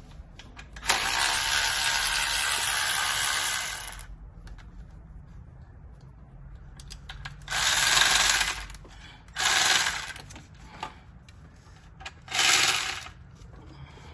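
A power tool run in four bursts: a long one of about three seconds near the start, then three shorter ones in the second half.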